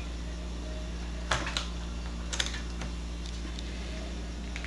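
A few short, sharp plastic clicks as a ball-lock liquid-line quick disconnect is worked off the keg's liquid post, over a steady low hum.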